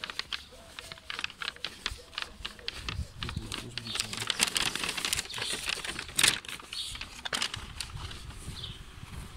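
Walking along a street with a handheld camera: irregular clicks and taps from footsteps and handling, with a stretch of rustling hiss midway and a sharp click a little after it.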